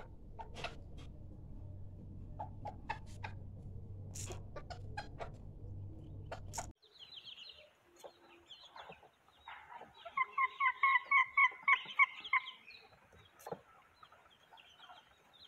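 Black bantam chicken clucking: a quick run of about ten clucks over two seconds, about ten seconds in. Before it, a low hum with scattered clicks.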